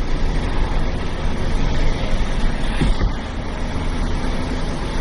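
Steady engine and road noise of a car being driven, a continuous low rumble.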